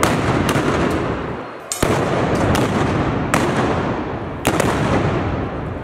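Black-powder arquebuses (trabucos) firing blanks in a dense volley: a constant rattle of shots and their echoes, with about seven sharper, closer reports standing out.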